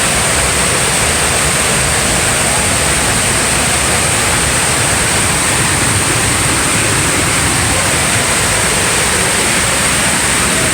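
Waterfall pouring close by: a loud, steady, unbroken rush of falling water.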